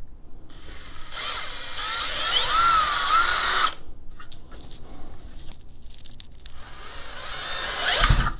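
Cordless drill boring a hole through a plastic AR-15 fixed stock in two runs of a few seconds each. The motor's whine wavers in pitch as the bit bites, and the second run cuts off sharply near the end.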